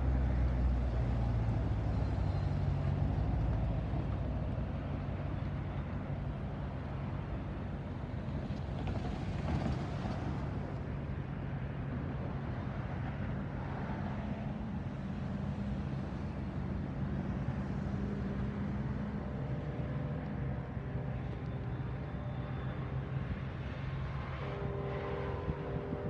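Union Pacific grain hopper cars rolling past: a steady rumble of steel wheels on the rails. A few steady higher tones join in over the last several seconds.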